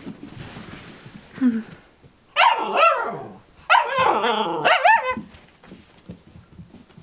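Ten-week-old Alaskan Malamute puppies barking and yipping in play: two loud bursts of high-pitched barks, the first lasting under a second and the second well over a second.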